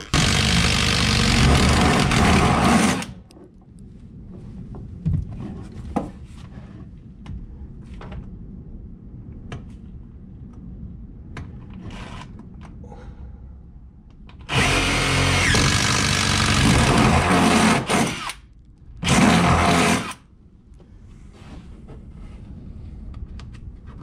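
Cordless drill boring holes into a wooden wall, in three runs: one about three seconds long at the start, one of about three and a half seconds midway, and a short one a second after that. Light knocks and handling sounds fall in between.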